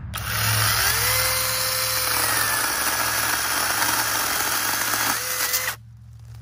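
Stonecho cordless brushless mini chainsaw with a 6-inch bar spinning up with a rising whine and cutting through a small tree trunk for about five seconds, gliding through easily. Its pitch dips and climbs once more near the end, then the motor cuts off suddenly.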